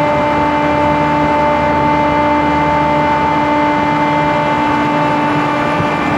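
Air-cooled chiller plant running: its Comer screw compressors, three of four on load, and condenser fans make a loud, steady hum. Several steady whining tones sit over an even wash of machine noise.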